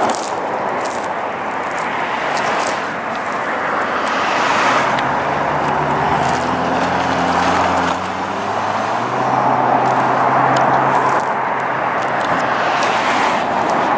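A motor vehicle's engine hum over a steady outdoor rush of wind and road noise. The hum comes in about five seconds in, swells and fades again over several seconds.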